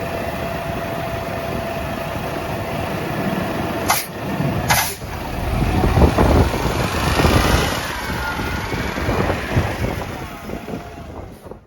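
Mack LR garbage truck's diesel engine running steadily, then two sharp clicks about four seconds in. The engine grows louder for a few seconds and then fades away.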